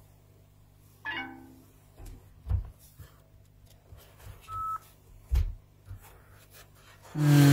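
Quiet room with desk handling noises: a brief murmur about a second in, two soft thumps, and a short electronic beep, then a man's voice starting near the end.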